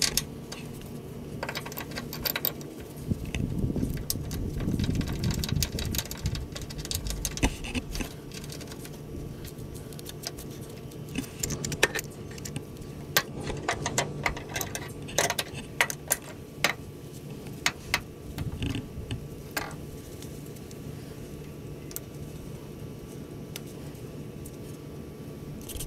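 Metal hardware clinking and rattling as a linear actuator's steel bracket is offered up and bolted to a truck frame by hand, with many sharp clicks. A few seconds in there is a louder, uneven low whirr.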